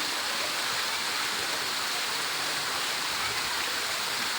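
Steady rush of falling, splashing water, an even hiss with no breaks.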